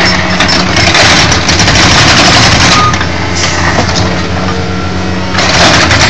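Skid steer loader's hydraulic breaker hammering a 10-inch concrete slab with rapid repeated blows, over the loader's engine running steadily. The hammering eases a little in the middle and comes back strongly near the end.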